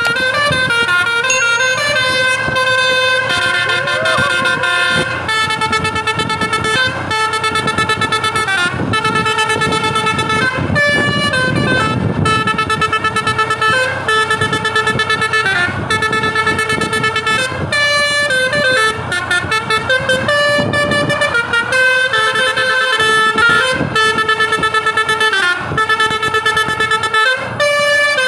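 A bus's telolet basuri V3 musical air horn, with its trumpets mounted on top, playing a tune. It holds notes for about half a second to a second at a time, with faster runs of short notes in places.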